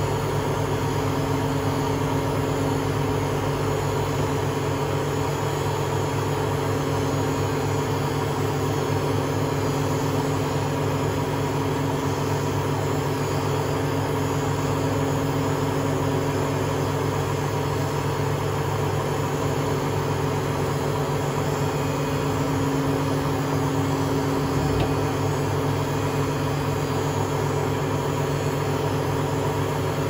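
Hotpoint Aquarius WMA32 washing machine on a test spin, its empty drum spinning at a steady speed with a constant motor hum and a few held tones.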